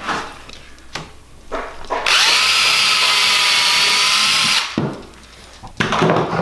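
Cordless drill boring a pilot hole into a willow stick: the motor spins up about two seconds in, runs steadily for about two and a half seconds and stops. A few light knocks of the sticks being handled come before it.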